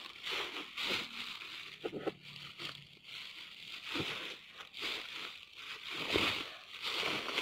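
Rustling and crunching of a fertiliser sack and its granules being handled at a drum, in irregular bursts of noise over a steady high hiss.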